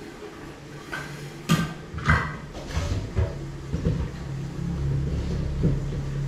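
Several sharp knocks and clatters, the loudest two about a second and a half and two seconds in, with a low steady hum coming in about two seconds in.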